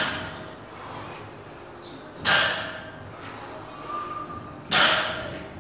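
Iron plates on a loaded barbell clanking against the sleeves during back-squat reps. There are two sharp clanks, each with a short metallic ring, about two and a half seconds apart, one per rep.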